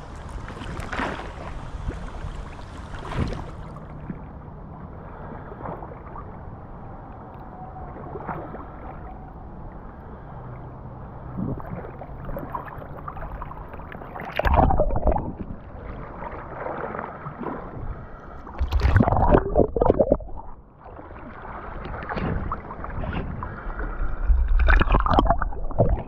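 Water sloshing and lapping against a GoPro held at the water's surface by a swimmer. The sound turns duller a few seconds in, and there are louder splashes about halfway through, again a few seconds later, and near the end as the feet kick at the surface.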